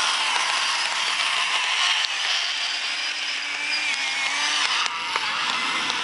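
Radio-controlled model tracked dumper's small electric drive motors and gearbox whirring as it drives, with a high whine that wavers in pitch and faint clicks.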